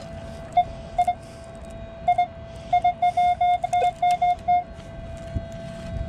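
Metal detector beeping on a target as the coil is swept back and forth over it, over a faint steady threshold tone. There are single beeps early, a pair near the middle, then a quick run of about ten beeps. The signal reads 26 on the detector, which the detectorist takes for a coin.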